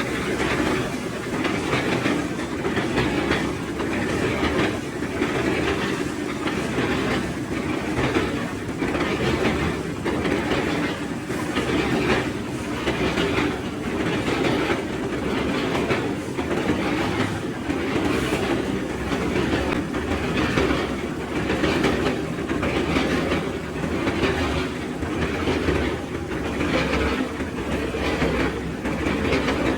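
Steady mechanical rumble with a regular clatter a little more than once a second.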